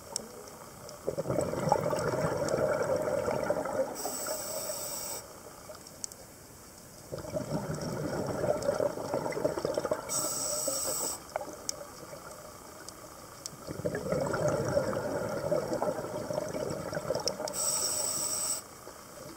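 Scuba diver breathing through a regulator underwater: three breaths about six seconds apart, each a long rush of bubbles ending in a short high hiss.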